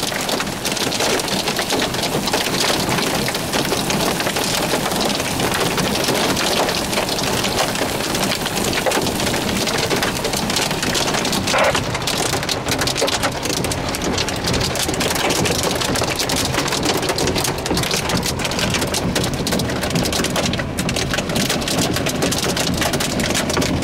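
Heavy rain and hail pelting a car in a severe thunderstorm: a loud, steady hiss. From about halfway on it carries many sharp taps of hailstones striking the vehicle.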